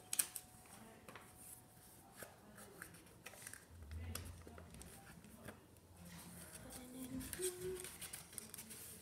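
Faint scratching and rustling of paper being worked at a table, a string of short, sharp scratchy strokes.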